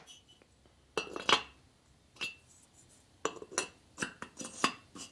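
Sharp metallic clinks and taps as engine parts are handled on a workbench: a piston is picked up and set onto a motorcycle cylinder. There are a few single clinks, then a quicker run of them over the last couple of seconds.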